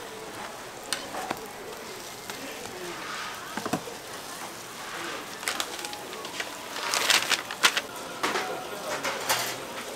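Street-food stall ambience at a hotteok griddle: faint voices and a run of sharp metal clicks and clinks from cooking utensils, loudest about seven to eight seconds in.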